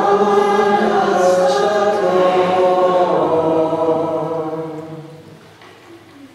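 A choir sings a slow unaccompanied chant of held notes, which fades out about five seconds in.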